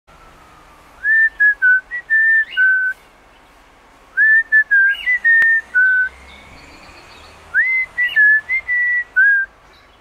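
A short whistled tune of clear, steady notes, repeated three times with pauses between.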